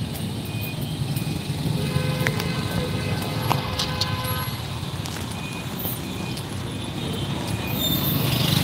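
Steady rumble of city street traffic: motorbikes and cars running by, swelling near the end as a vehicle passes close.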